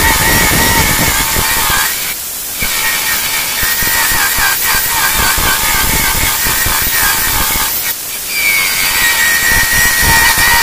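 Electric chainsaw running under load, its chain cutting a long shallow groove into a hardwood board, with a steady motor whine and rasping cut. The sound dips briefly about 2 seconds in and again about 8 seconds in.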